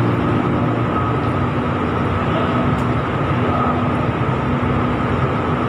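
Steady background din of a fast-food restaurant dining room: an even wash of noise with a faint steady hum underneath.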